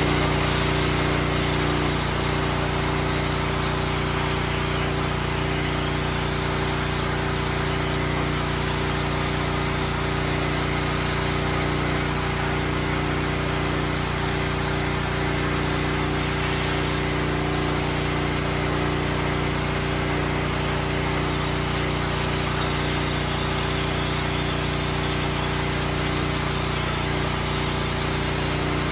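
CNC plasma cutter cutting: the torch's steady hiss with a constant low hum underneath.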